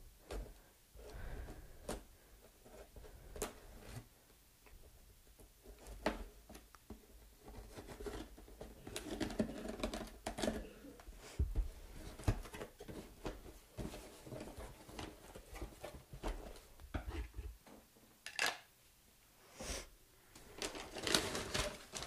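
A knife blade scraping and slicing through packing tape on a cardboard box, with irregular clicks and taps from handling the box. Near the end the cardboard flaps are folded open and the paper packing inside rustles.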